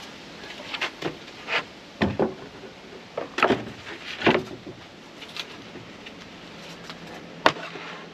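Strips of plywood being handled and laid on a mitre saw's table: a series of short wooden knocks and scrapes, with one sharp knock about seven and a half seconds in.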